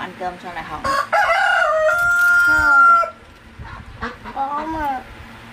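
A rooster crowing once, a loud call of about two seconds that ends on a held steady note, with shorter clucking calls before and after it.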